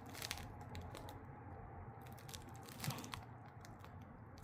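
Faint scattered clicks and rustling of hands handling parts, with one louder click about three seconds in, over a low steady hum.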